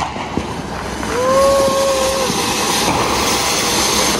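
Anar (flower-pot firework fountain) hissing steadily as it sprays sparks; the hiss swells about a second in. A brief whistling tone of about a second sounds over it early on the swell.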